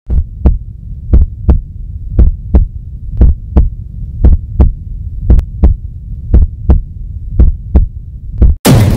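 Heartbeat sound effect: paired low thumps, lub-dub, about once a second over a steady low hum. Near the end it cuts off suddenly and drum-led music starts.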